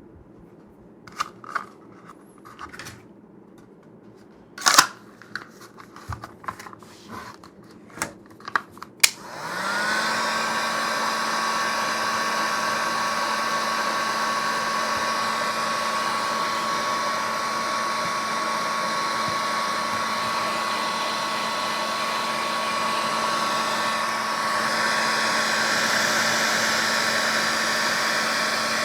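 A few light clicks and knocks, then about nine seconds in a heat gun switches on, its motor spinning up and then running steadily with a whine and rushing air. It is heating the kydex holster to soften it for reshaping.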